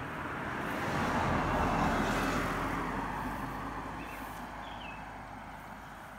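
A road vehicle driving past, its noise swelling to a peak about two seconds in and then slowly fading away.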